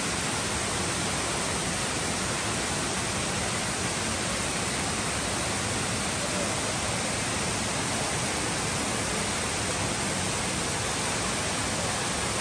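Steady, even rush of flowing water, like a stream or small waterfall, with no change in level throughout.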